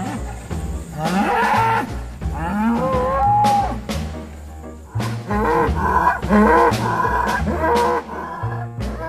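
Angus bulls bellowing: repeated long calls that bend in pitch, the last stretch the longest, as the bulls posture for dominance. Jazz music with a steady beat plays underneath.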